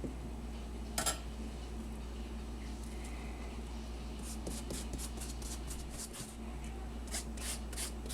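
Faint handling noises in a kitchen: a light click about a second in, then a run of soft short rubbing and rustling strokes in the second half, over a steady low electrical hum.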